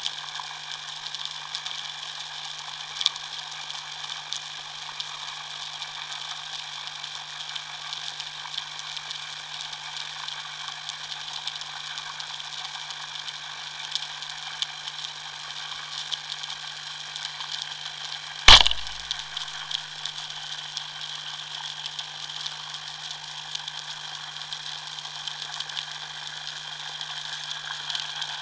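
Underwater ambience picked up by a diving camera: a steady hiss with scattered faint clicks and a constant low hum, broken about eighteen seconds in by one sharp, loud crack.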